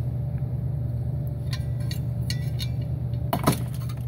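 Steady low hum, with a few faint light clicks in the middle and one sharper click about three and a half seconds in.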